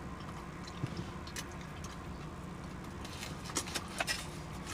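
Close mouth sounds of someone eating a hot dog: a few scattered wet chewing and smacking clicks over a steady low hum inside a car.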